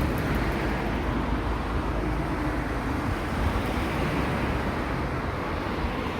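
Road traffic: vehicles running past on a highway, a steady rumble with tyre noise.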